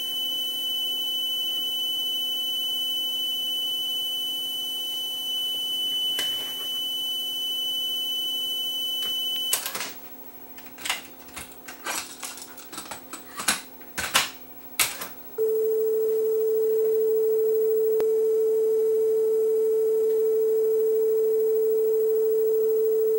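Technics RS-M275X cassette deck playing a steady 3 kHz test tone from a test tape to check its tape speed after a new cam belt. The tone stops about ten seconds in, followed by several seconds of sharp clicks from the deck's transport and cassette handling. Then a steady 440 Hz test tone starts and holds to the end.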